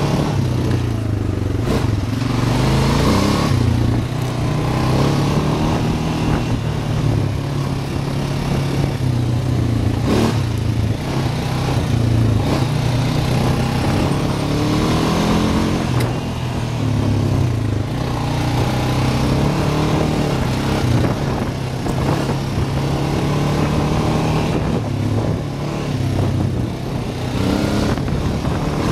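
ATV engine running on the move, its pitch rising and falling as the throttle changes.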